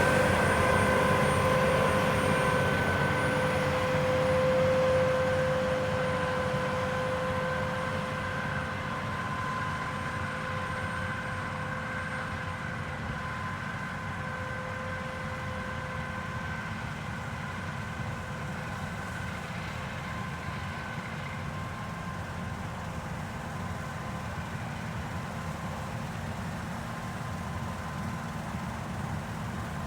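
Heavy harvest machinery running, a steady low rumble with a high whine at a fixed pitch. It gets quieter over the first ten seconds or so, then holds steady.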